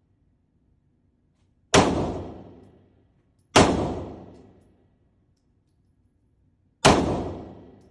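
Three gunshots, the second less than two seconds after the first and the third about three seconds later, each trailing off over about a second.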